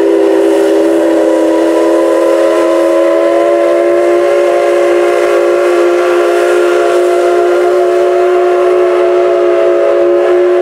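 Steam whistle of JNR Class C56 steam locomotive C56 160 sounding one long, loud, steady blast.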